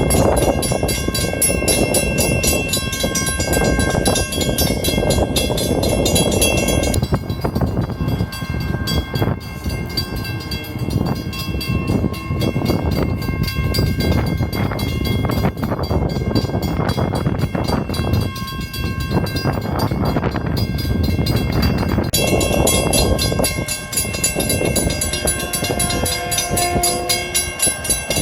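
A train passing close by, recorded on a phone microphone: loud rumbling and clatter with steady high tones over it. A horn sounds near the end.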